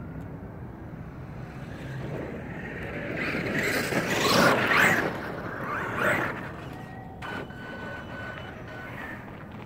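Traxxas E-Revo electric RC truck driving hard on a dirt track near the camera. Its motor whine and tyre noise build to a loud pass about four to five seconds in, come back briefly just after six seconds, then fade.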